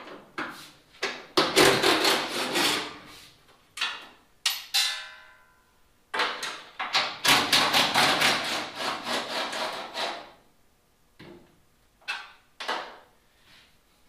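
Ratchet wrench clicking in two long runs as the fender bolts of a car are undone, with a short metallic ring between them and a few single clinks of the tool.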